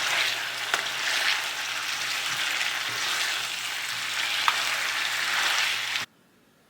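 Food frying in hot oil in a pan: a steady sizzle with a few sharp pops, cutting off abruptly about six seconds in.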